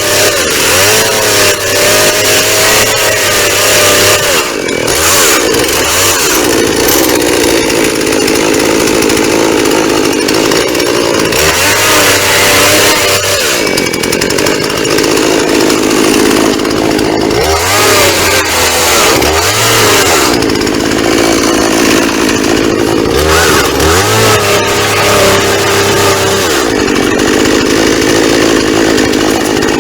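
Two-stroke chainsaw running at high revs, its engine note dipping and recovering several times, as when the chain is pushed into a cardboard box and eased off.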